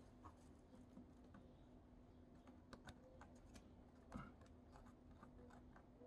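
Near silence with faint scattered small clicks and taps, a slightly louder one about four seconds in, from a wire and a soldering iron tip handled against the terminal of a plastic SpeakON panel-mount connector during soldering. A faint steady hum lies underneath.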